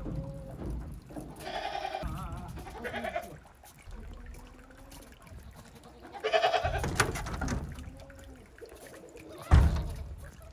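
Goats bleating: three calls, the longest and loudest about six seconds in, then a sharp thump near the end.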